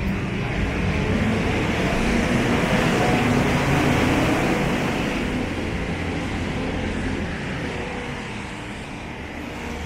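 A passing vehicle: a broad rumbling noise that swells to its loudest about four seconds in, then slowly fades.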